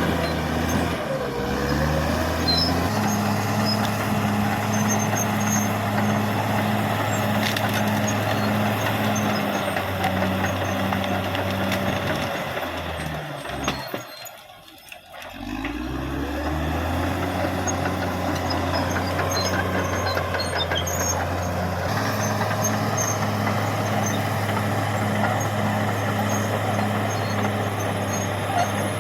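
Caterpillar D6R XL bulldozer's diesel engine running under working load, its pitch stepping up and down as the load changes. It drops away for about a second near the middle, then comes back up.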